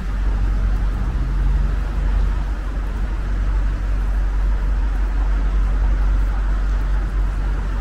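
City street traffic: a steady low rumble of engines and tyres from passing vehicles, with one engine's hum standing out for about the first second and a half.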